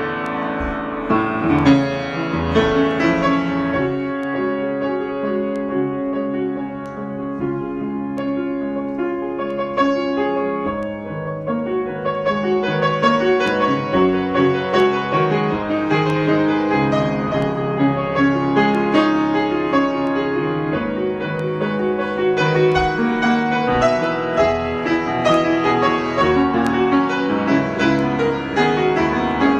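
Solo piano improvisation, with many notes struck and left ringing over one another.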